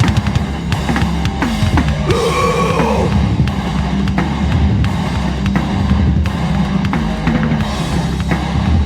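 Hardcore punk song in an instrumental passage, driven by a busy drum kit with bass drum and snare.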